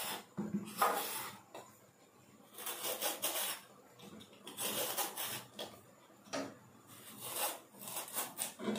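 Skin being peeled off a bottle gourd: a blade scraping along the rind in about half a dozen strokes of uneven length.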